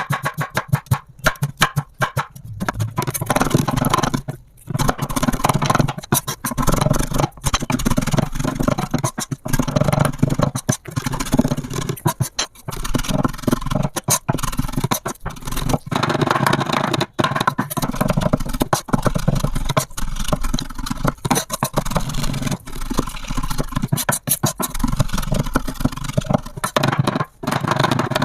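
A kitchen knife chopping rapidly and without pause on a cutting board, several strikes a second, with some scraping, as food is minced down to a paste.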